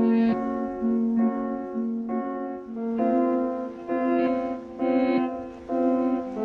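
Music: a piano-like keyboard playing held chords and notes, with a new note or chord about every half second to a second.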